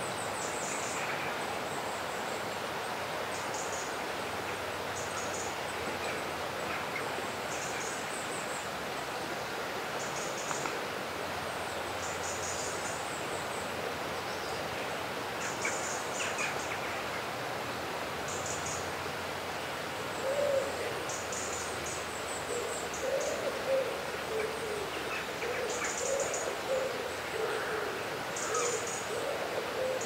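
River ambience: a steady rush of flowing water, with a bird's thin, high calls repeating every second or two. From about two-thirds of the way in, a run of low, repeated bird calls joins them.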